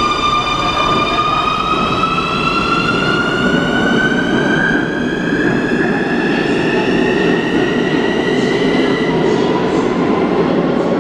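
Keikyu electric train pulling out: the whine of its traction motors rises steadily in pitch as it gathers speed and fades near the end, over a rumble of wheels on rail that grows as it goes.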